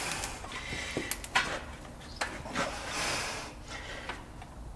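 Scattered light clicks and knocks, with some rubbing, of hands working hardware on a truck's air disc brake caliper at the wheel hub.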